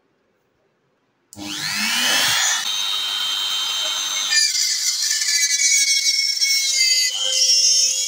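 Handheld electric rotary tool switched on about a second in, its whine rising as the motor spins up, then running steadily while a thin bit drills a hole through a wooden knife-handle scale; the sound changes about four seconds in as the bit works into the wood.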